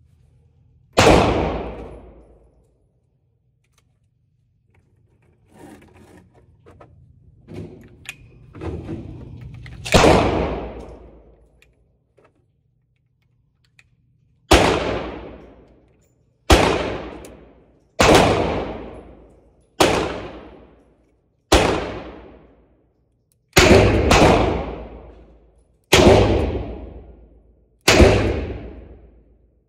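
Gunshots from a Taurus Judge Public Defender Poly .410/.45 Colt revolver in an indoor range, each a sharp crack that echoes off the walls. Two single shots come with quieter handling clicks between them, then eight shots about every two seconds.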